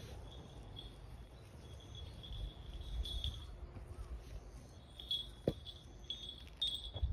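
Insects chirping in short runs of a high, steady note over a low rumble, with a single sharp click about five and a half seconds in.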